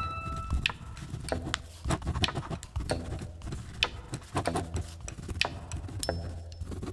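Bic Cristal ballpoint pen drawing on paper: irregular scratches and ticks of the tip against the sheet, over a low steady hum.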